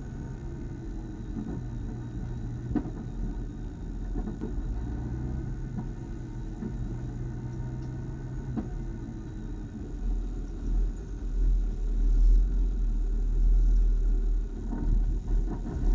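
Race car's engine running at low speed, heard from inside the cabin: a steady low rumble with a few faint knocks, growing louder and more uneven from about ten seconds in.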